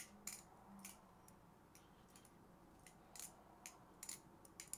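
Light metallic clicks of a titanium balisong (butterfly knife) being handled and flipped, its handles and blade tapping together. The clicks are scattered and irregular, a couple near the start, a quieter stretch, then several more in the second half.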